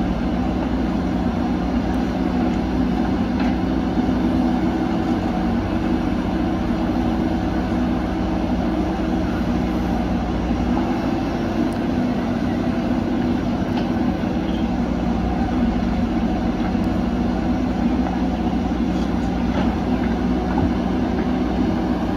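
Diesel engines of backhoe loaders, among them a JCB 3DX, running under digging and loading work as a steady drone. The deepest part of the rumble drops away about halfway through.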